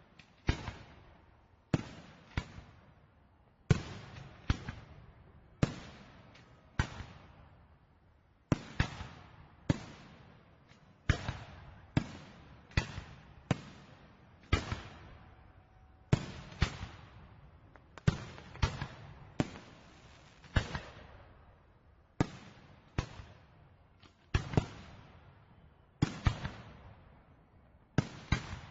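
Fireworks shells bursting one after another, a sharp bang roughly every half second to second, each followed by a fading echo.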